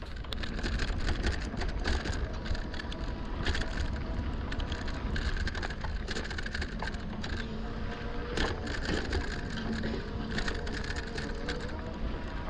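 Lectric XP folding fat-tyre e-bike ridden off-road: tyres rolling over an unpaved trail with many small crackles and knocks, and wind rumbling on the microphone.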